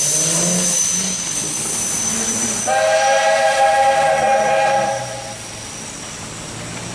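Steam traction engine hissing steam, then its whistle blowing one steady multi-note chord for about two and a half seconds from a little before the middle, and cutting off.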